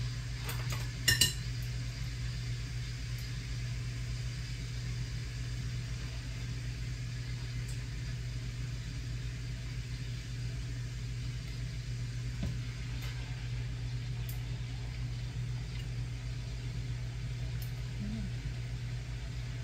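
Steady low hum of a kitchen range hood fan, with a few sharp clinks of metal tongs against a glass bowl and the pot about a second in as raw chicken drumsticks are lifted into hot oil.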